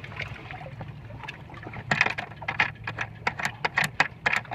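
Small metal hardware being handled: a run of sharp, irregular clicks and rattles, several a second, starting about two seconds in, over a low steady background rumble.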